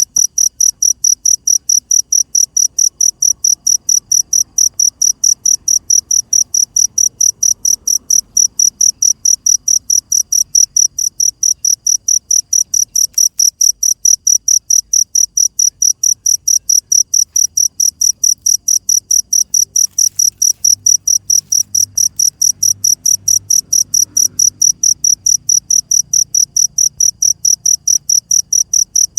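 A cricket chirping steadily at night, a loud high-pitched chirp repeating evenly about three to four times a second.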